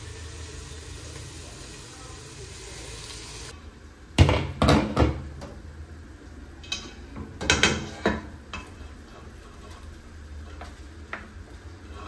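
Cooking sounds: a steady sizzle, then a utensil stirring and clanking against a pot in several short, loud clattering bursts.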